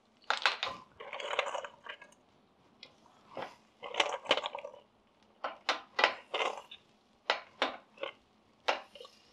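Whole clams dropped one at a time into a stainless steel sauté pan of chili sauce. Their shells land with a long string of sharp clicks and knocks at an uneven pace.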